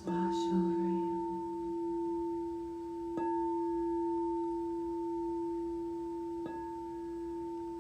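A singing bowl struck three times, about three seconds apart, each strike ringing on as a steady low hum with a higher overtone that swells gently.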